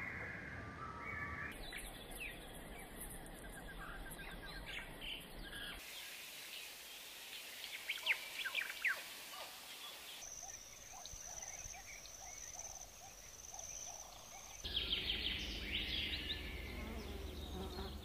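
Wild birds chirping and calling over insect buzzing, with a steady high insect drone partway through. The background changes abruptly every few seconds.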